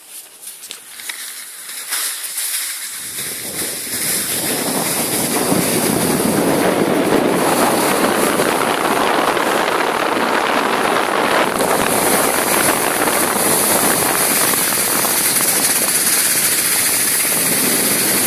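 Steady rushing noise of skiing downhill: wind buffeting the microphone and skis sliding over packed snow. It builds over the first few seconds, then holds steady.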